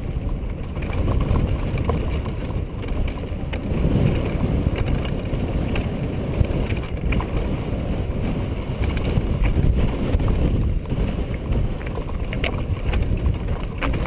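Mountain bike rolling down a rocky trail: a steady rumble of wind buffeting the action camera's microphone, with frequent rattles and knocks as the bike jolts over the stones.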